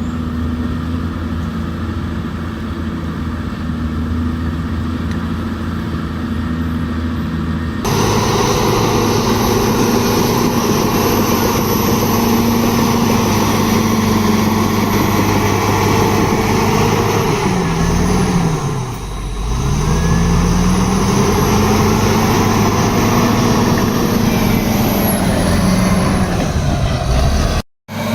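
Diesel engine of heavy earthmoving equipment running steadily. About eight seconds in, the sound cuts abruptly to a louder, harsher engine whose pitch sags and climbs back around nineteen seconds. The sound briefly drops out near the end.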